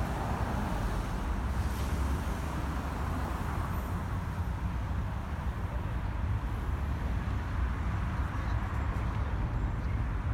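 Steady city road traffic: cars driving past, a continuous low rumble of engines and tyres.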